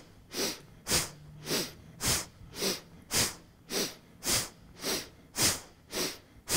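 Bhastrika (bellows) breathing: forceful breaths drawn in and pushed out through the nose in a steady rhythm, about two a second, each a short rush of air.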